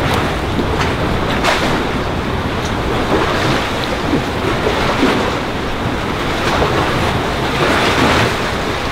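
Choppy water washing and splashing against concrete breakwater blocks, a rush of surf about every one and a half seconds, with wind buffeting the microphone as a low rumble underneath.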